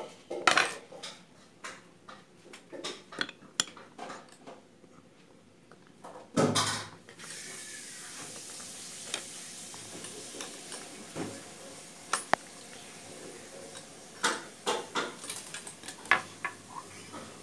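Metal clinks and knocks from hands working on the underside of an industrial flatlock sewing machine, with one louder clatter about six seconds in. Just after it a steady faint hum sets in under the clicks.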